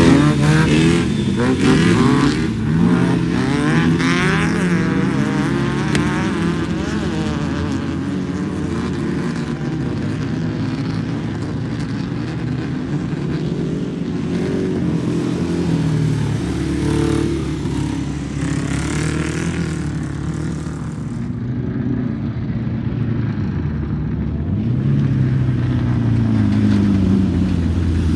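Engines of Class 11 off-road race cars (stock air-cooled VW Beetles) revving as they run past. The pitch rises and falls in several sweeps as cars accelerate and go by.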